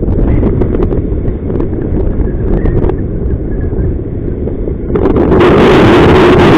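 Strong wind of about 25 mph buffeting the microphone as a heavy low rumble; about five seconds in, a stronger gust swells louder and hissier.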